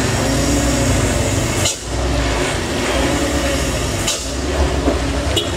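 Truck and motorcycle engines running as the traffic climbs a steep, wet hairpin bend. The sound changes abruptly twice, where the footage is cut.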